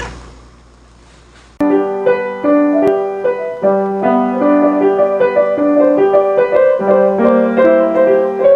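Piano playing a flowing melody over sustained low chords, starting abruptly about a second and a half in. It follows a short rush of noise at the start that fades away.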